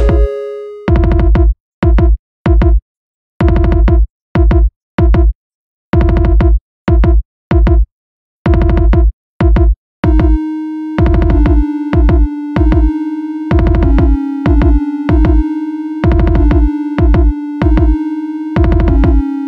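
Electronic music: short synth-and-bass stabs, cut off hard with silent gaps between them, for the first half; about halfway through, a held synth tone comes in and carries on under the stabs.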